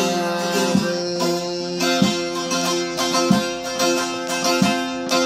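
Bağlama (long-necked Turkish saz) played solo: evenly spaced plucked strokes, roughly one and a half a second, over steadily ringing strings.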